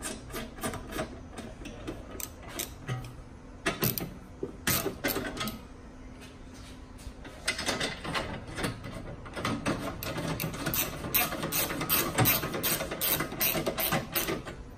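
Hand ratchet with a 17 mm socket clicking in quick runs as the skid plate bolts are tightened, with short pauses between runs. The longest run comes in the second half.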